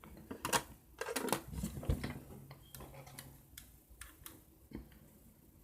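Scattered light plastic clicks and rattles of a Rubik's cube being handled and turned, irregular and a few at a time.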